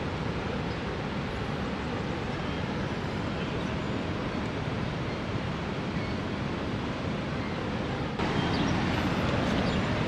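Steady rushing of a large waterfall, an even wash of falling water. About eight seconds in it changes abruptly to a louder, fuller rush.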